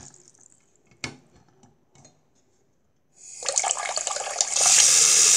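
Bathroom sink tap turned back on about three seconds in, its stream of water splashing into the basin and growing louder. Before that, a single sharp click and a few faint ticks.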